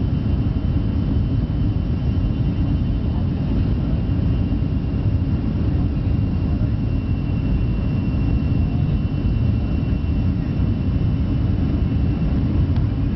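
Steady cabin noise inside a Boeing 707-3J9C in flight: the rumble of its Pratt & Whitney JT3D turbofans and the airflow, with a faint, steady high whine over it.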